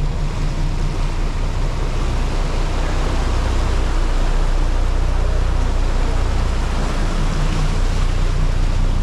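A fishing boat's engines running steadily under way, a constant low drone with the rush of wind and water over it.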